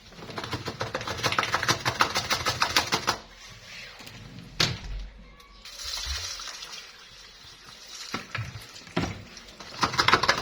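Dishwasher salt settling into a Samsung dishwasher's salt reservoir as water is poured onto it, heard as dense grainy crackling for about three seconds and again near the end. A single sharp knock comes about halfway through.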